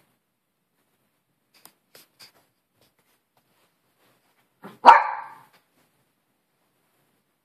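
A small Maltese-poodle dog gives one short bark about five seconds in.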